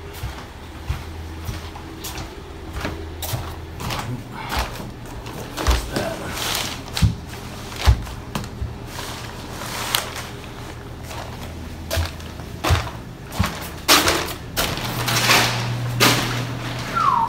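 Footsteps on plastic sheeting laid over a carpeted hallway, the plastic rustling and crinkling with scattered knocks and clicks, over a steady low hum.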